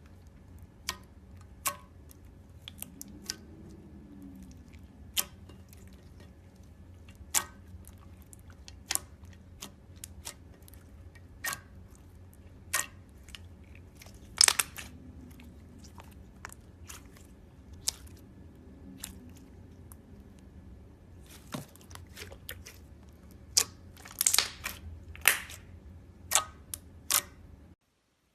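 Slime being worked by hand, giving irregular sharp clicks and pops over a faint steady hum. The sound cuts off abruptly near the end.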